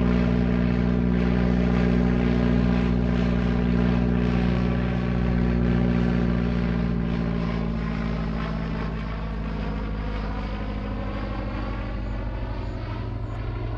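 Propeller plane flying high overhead, its engine running in a steady hum. It grows a little quieter and its upper tones slowly slide lower over the second half.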